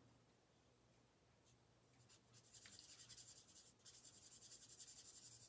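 Alcohol marker tip scratching faintly on cardstock in quick, repeated short coloring strokes, starting about two seconds in.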